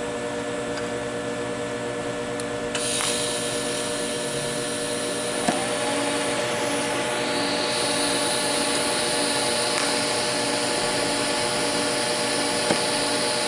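TIG welding arc tack-welding a steel angle to a steel table at full pedal, with no filler rod: a steady hiss starts about three seconds in, and from about halfway the arc burns with a steady high tone and a stronger hiss. The welder's steady hum runs underneath.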